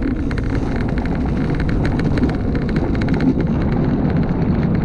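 Luge cart's wheels rolling fast down a concrete track: a loud, steady rumble with a constant stream of small rattling clicks.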